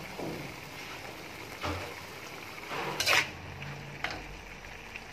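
Squid frying in a metal wok with a steady sizzle, while a metal spatula scrapes and knocks against the pan a few times, loudest about three seconds in.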